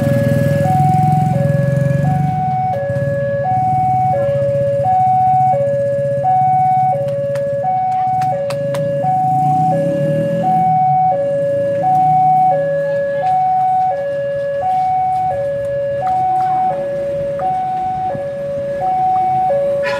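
Railway level-crossing warning alarm sounding a steady two-tone 'ding-dong', a high and a low note alternating about every 0.7 s; it signals an approaching train while the crossing barrier is lowered. Under it, a low engine rumble from waiting motorbikes and traffic.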